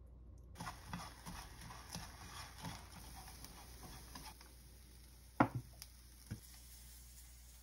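Wooden chopsticks stirring and scraping dried anchovies in a frying pan: a quick run of light taps and clicks. About five and a half seconds in come a few sharp knocks, the first the loudest.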